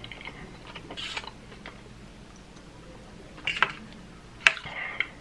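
Close-miked chewing of chewy rice cakes (tteokbokki) with small wet mouth clicks. A few sharp clicks come around three and a half and four and a half seconds in, as a metal fork taps the steel tray.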